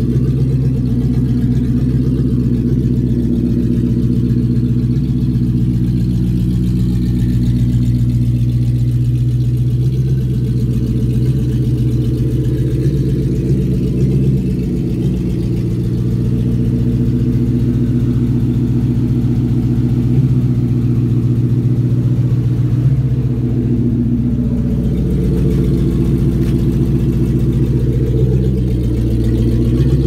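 1995 Lexus LS400's 4.0-litre V8 idling steadily, a low, even exhaust note.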